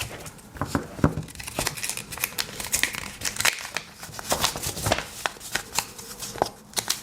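Paper packaging insert being unfolded and handled, with irregular rustling and crinkling.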